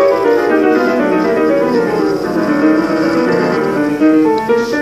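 Background piano music: a quick run of notes that steps downward and then climbs back up.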